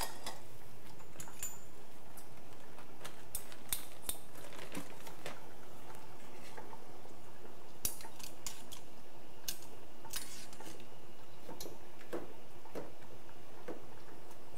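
Metal tongs and a wire-mesh noodle strainer basket clinking against a stainless steel pot insert: scattered, irregular light clicks.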